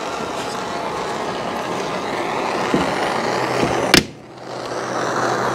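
A heating tool runs with a steady rushing hiss while softening the butyl tape that holds a back window. A sharp click comes near four seconds in; the sound then drops briefly and builds back up.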